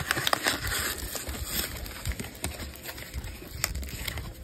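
Plastic shrink wrap on a trading-card box crinkling and tearing as fingers pick at it and peel it open, with many small crackles and snaps. The crinkling is densest in the first two seconds and thins out after.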